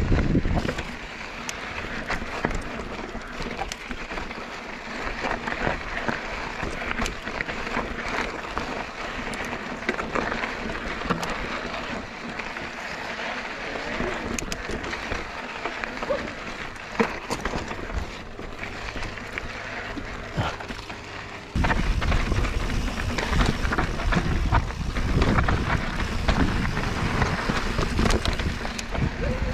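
Mountain bike ridden along a dirt trail: tyres crunching over the ground and the bike rattling, with many small clicks and knocks. About two-thirds of the way through the sound suddenly gets louder and deeper.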